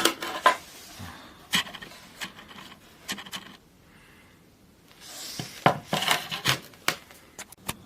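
Scattered light clicks, knocks and rubbing of small metal parts being handled and set down, with a quiet pause about halfway through.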